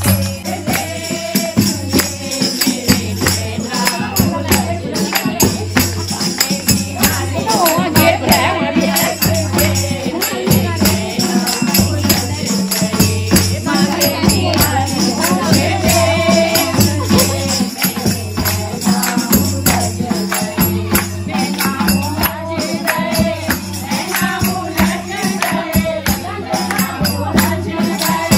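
A group of women singing a Holi song together, with hand-clapping, tambourine jingles and a steady low beat keeping time.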